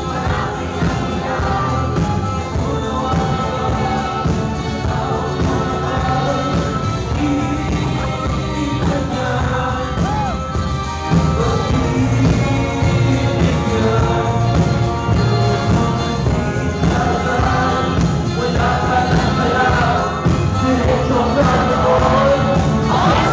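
Live rock band with electric guitars and drums playing under a lead vocalist singing into a microphone, heard from within the audience. The band gets louder about eleven seconds in.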